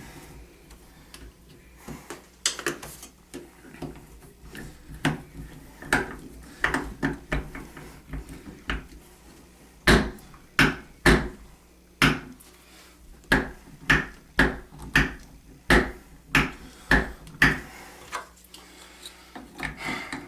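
Sharp clicks and knocks of metal faucet parts and a hand tool as a bathroom faucet's handle is fitted back on and fastened. The knocks are scattered at first, then come in a run of sharp clicks about twice a second through the middle of the stretch.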